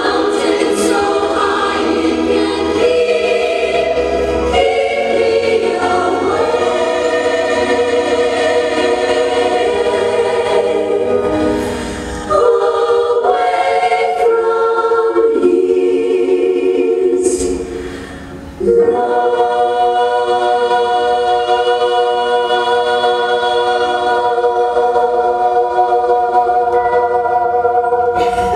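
A choir singing a song with music, in held, changing chords. It dips briefly twice, about twelve and eighteen seconds in, and comes back in full.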